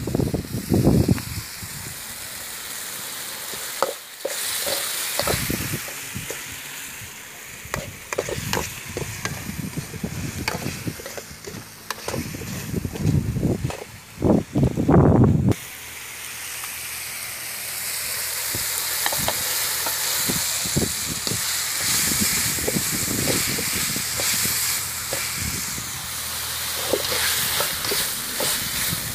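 Onion-tomato masala sizzling in a metal pot, with a metal slotted ladle scraping and knocking against the pot as it is stirred. The sizzle grows louder and steadier in the second half, as unlaid chicken eggs are frying in the masala.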